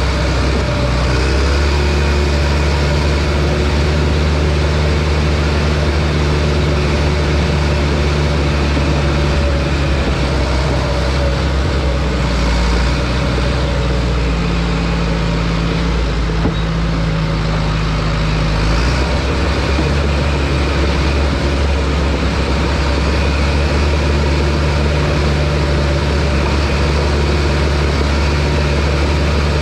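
John Deere bulldozer's diesel engine running steadily under work, its note shifting for several seconds around the middle.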